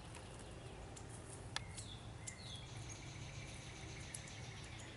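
Faint outdoor ambience: scattered bird chirps and short whistled calls over a low, steady background rumble, with a few sharp clicks.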